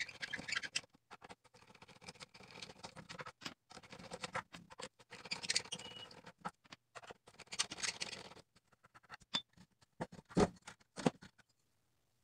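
Scratchy rattling and fine clicking of screws being worked out of a horn compression driver's metal mounting plate, for about eight seconds. Then two sharp knocks as the driver is lifted out of the speaker cabinet.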